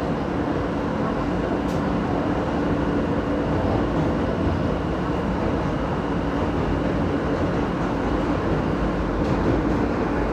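Interior of an R160 New York subway car running along the track: a steady rumble of wheels on rail with a constant low hum.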